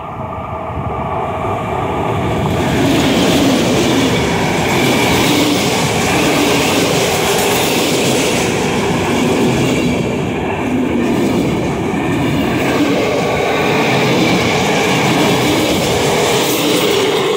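An EP09 electric locomotive and its train of passenger coaches pass close by. The rumble of wheels on the rails builds over the first few seconds, then holds loud and steady as the coaches roll past.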